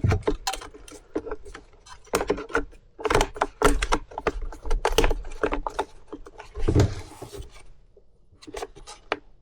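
Repeated clicks, knocks and scrapes of the plastic housing parts of a Stihl BG 65C leaf blower being handled and fitted back together, with a longer scrape about seven seconds in.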